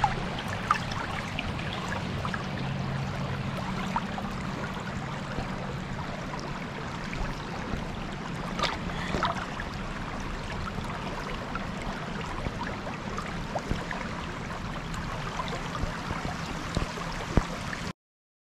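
Steady rush of river water with scattered small knocks and splashes over a low steady hum, cutting off abruptly near the end.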